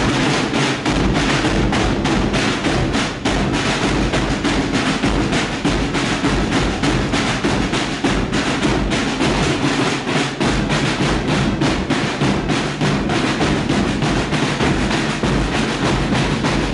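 Portuguese Minhoto bombos group playing: snare drums and large bass drums beating a fast, steady rhythm, with accordions sounding underneath.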